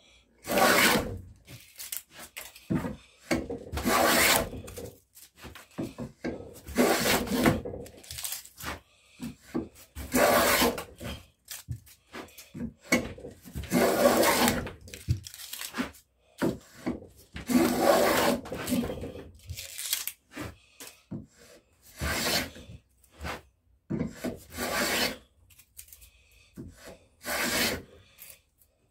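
Hand rebate plane cutting a rebate along a cedar rail: repeated long scraping strokes of the blade through the wood, about a dozen, each lasting about a second and following every two to three seconds, with short pauses as the plane is drawn back.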